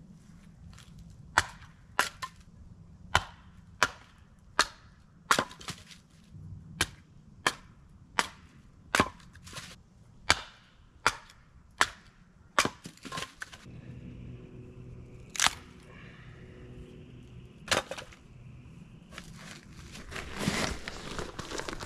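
Hatchet splitting firewood into kindling: sharp cracking strikes of blade on wood, about one every three quarters of a second, then two more spaced a couple of seconds apart. Near the end, rustling of clothes and bags being rummaged through.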